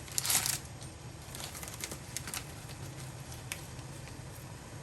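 Dry sage leaves rustling as a spoonful is tipped into the pot, stopping about half a second in, then a few faint light ticks over a low steady hum.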